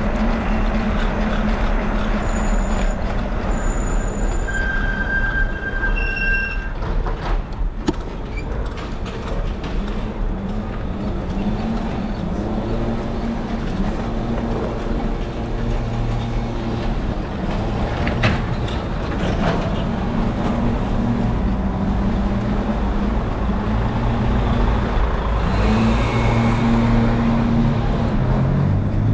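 Street noise while cycling: a steady low wind rumble on the camera microphone and the wavering low hum of motor traffic. A few brief high-pitched squeals sound in the first several seconds.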